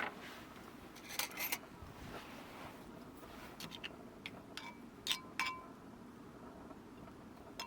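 Light clicks and clinks of metal cookware and utensils being handled, a scattered handful of them with a short metallic ring.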